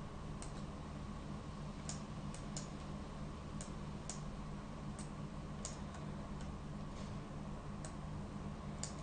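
Faint computer mouse clicks, about a dozen at irregular intervals, over a steady low electrical hum.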